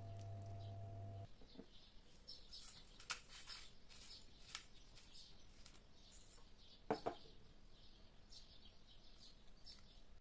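A low steady electrical hum with a thin whine over it cuts off suddenly about a second in. After that it is near silence, with faint short high chirps and two soft knocks.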